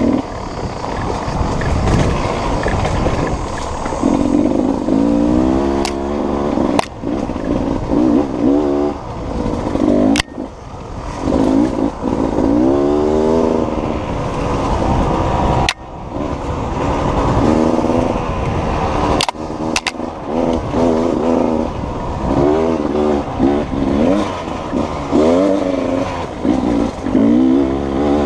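Beta two-stroke enduro motorcycle engine revving up and falling back again and again as it rides a dirt trail. A few sharp knocks cut in along the way.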